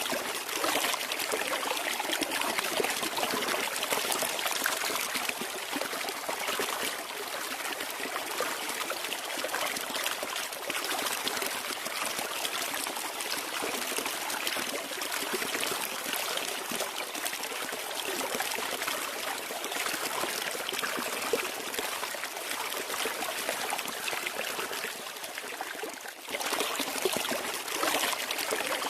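Flowing water running steadily as an even, hissy rush, with a brief dip in level near the end.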